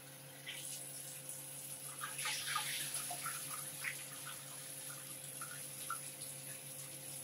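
Rice being washed by hand in a bowl under cold running tap water: water running and splashing, rinsing the starch off the grains.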